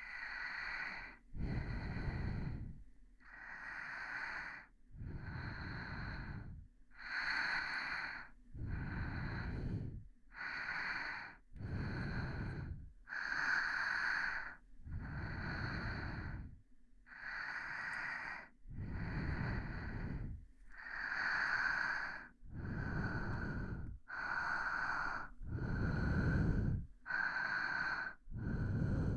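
A person breathing slowly and softly right at the microphone, with breaths drawn in and let out in a steady, even rhythm.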